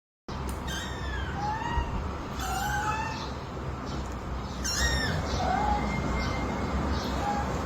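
Kittens mewing: about eight short, high-pitched cries scattered over a steady background hiss.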